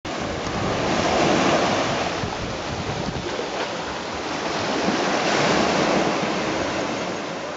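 Small surf waves washing onto a sandy beach, swelling loudest about a second in and again around five seconds in, with wind buffeting the microphone.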